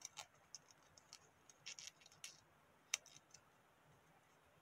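A small square of colour origami paper crinkling and crackling between fingers as it is folded and pressed: scattered soft crackles, the sharpest about three seconds in.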